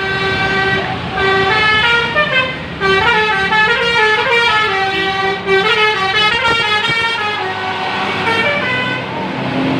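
Bus 'telolet' musical air horns playing a tune of short held notes that step up and down in pitch, with the notes overlapping in the middle and thinning out near the end.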